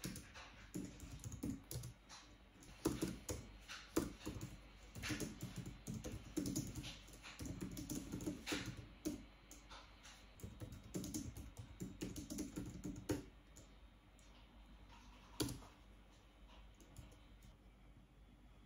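Typing on a computer keyboard: quick, uneven runs of key clicks that die away about two-thirds of the way through, with one more sharp click a couple of seconds later.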